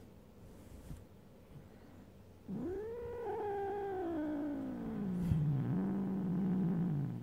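Dozing domestic cat giving one long, drawn-out vocal call, starting a few seconds in; its pitch rises briefly, then slides slowly down and holds low before it stops.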